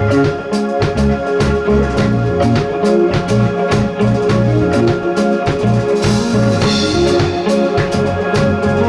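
Indie rock band playing live: drum kit beating a steady rhythm under sustained bass and electric guitar chords, with a cymbal crash about six seconds in.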